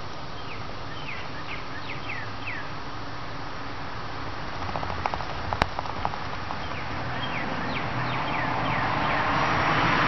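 Outdoor ambience: a bird gives two runs of short, quick, falling chirps, one near the start and one about seven seconds in, over a steady rushing background. A few sharp clicks come around five to six seconds in, and the rushing noise grows louder toward the end.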